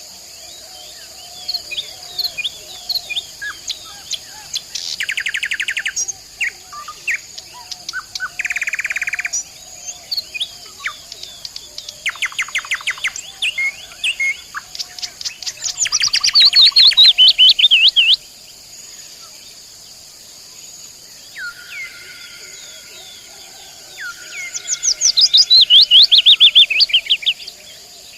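A nightingale singing in varied phrases: fast runs of repeated notes and rattling trills, short slurred notes, and a few long held whistles past the middle. The two loudest rattling phrases come midway and near the end. A steady high insect buzz runs underneath.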